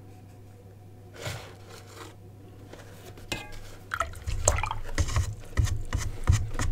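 Paintbrush rinsed in a pot of water, swished and knocked against the pot in a quick run of small clicks and splashes that starts about four seconds in.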